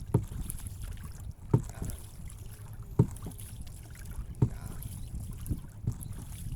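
Dull knocks repeating about every second and a half, five in all, over a steady low rumble of wind on the microphone.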